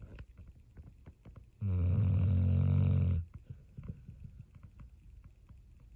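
Pit bull snoring: one loud, evenly pitched snore about a second and a half long, starting about a second and a half in, with faint soft ticks between snores.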